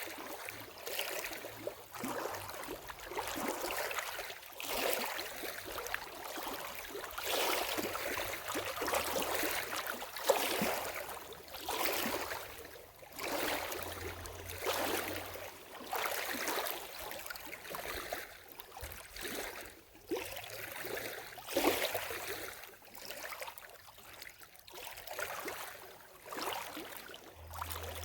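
Lake water lapping at the shore in small, irregular washes, swelling and falling back every second or two.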